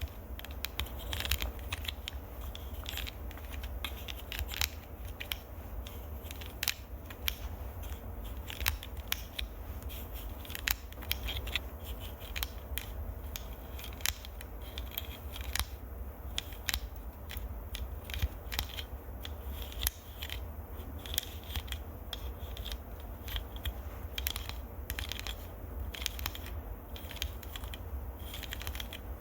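Fingernails scratching and tapping close on a microphone, a dense run of irregular crisp clicks and scrapes, several a second, over a low steady hum.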